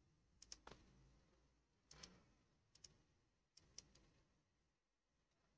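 Faint computer mouse clicks, about seven scattered short clicks, a couple of them in quick pairs, as nodes are placed with a drawing tool; otherwise near silence.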